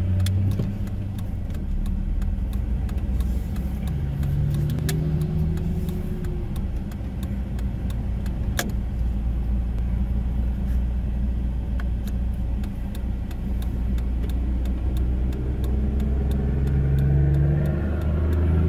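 Heavy-haulage truck's diesel engine running with a low, steady drone as it tows an abnormal load past, growing louder in the last few seconds as the truck comes close.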